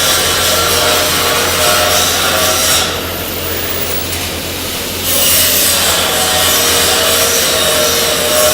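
Stick-welding arc with a 1/8-inch 6013 rod at about 120 amps, crackling steadily over a low hum. The crackle thins out for about two seconds in the middle and then picks back up.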